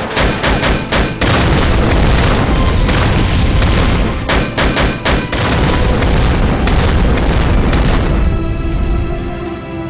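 Dramatic battle sound effects: a rapid string of shell explosions and blasts with a heavy low rumble, laid over a dramatic film score. The blasts die away about eight seconds in, leaving the music.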